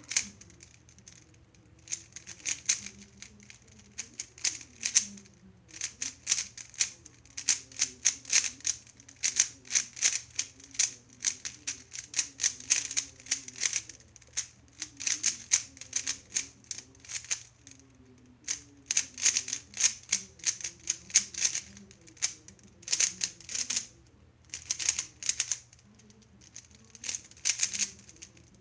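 Plastic clacking of a MoYu AoLong 3x3 speedcube being turned fast during a timed solve: quick runs of turns broken by short pauses.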